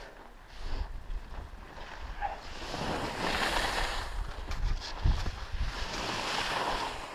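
Skis scraping over chopped-up packed snow during a downhill run, the noise swelling twice as the skier turns, over a low rumble of wind on an action camera's microphone. One short knock about five seconds in.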